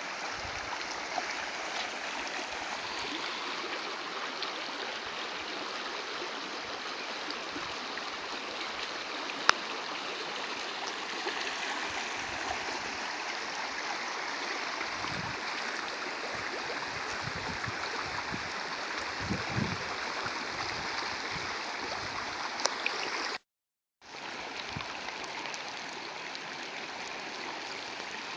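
Steady rushing of rainwater in a downpour, rain and running water together. The sound cuts out completely for about half a second some 23 seconds in.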